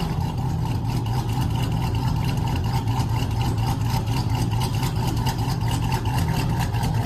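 Ram TRX's supercharged 6.2-litre Hemi V8 idling steadily, a deep, even rumble.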